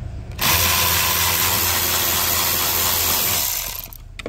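Milwaukee M12 cordless ratchet running with a 7 mm socket, backing out a screw of a plastic dash panel. It starts about half a second in, runs steadily for about three seconds and winds down, with a couple of clicks near the end.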